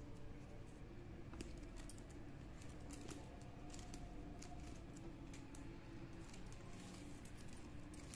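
Faint, irregular clicking and rustling of plastic craft wire as hands pull the strands through and tighten box knots.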